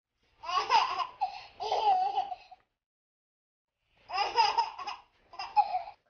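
Baby laughing in high-pitched bursts: a run of giggles, a pause of over a second, then two more laughs.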